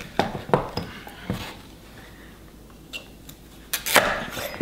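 Chef's knife being forced through a raw butternut squash on a wooden cutting board: a few sharp cracks and knocks in the first second and a half as the blade works through the hard flesh, then a quiet stretch, then more knocks against the board near the end.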